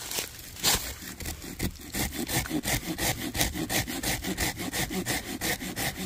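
A reciprocating saw blade, clamped in a Leatherman Crunch's locking plier jaws, sawing by hand through a weathered log. A few slow strokes come first, then fast, even back-and-forth rasps, several a second, from about two seconds in.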